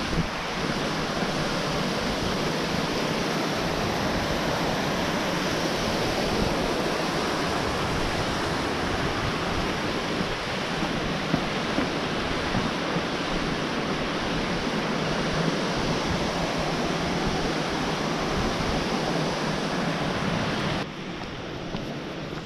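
Steady, unbroken rush of ocean surf, mixed with wind. About 21 seconds in it drops suddenly to a quieter, duller rush.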